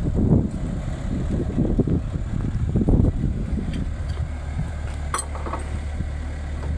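Engine running steadily at low revs, a low drone with irregular low rumbling over it for the first few seconds. A couple of short light clicks about five seconds in.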